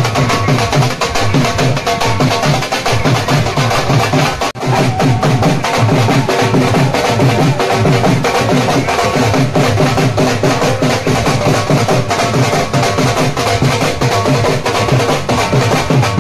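Dhol drums of a baraat band beaten in a fast, driving rhythm, loud and continuous, with a brief drop about four and a half seconds in.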